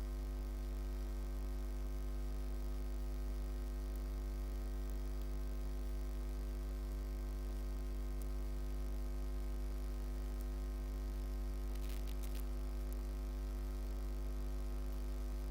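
Steady electrical mains hum, a low buzzing tone with a ladder of overtones, unchanging throughout, with a brief crackle about twelve seconds in.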